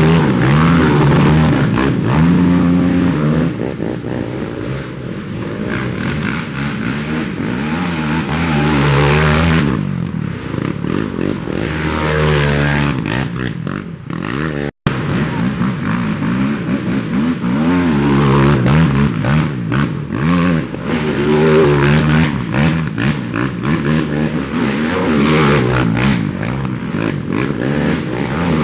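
Racing ATV engines revving up and down as quads ride past, several engine notes overlapping. The sound cuts out for an instant about halfway through.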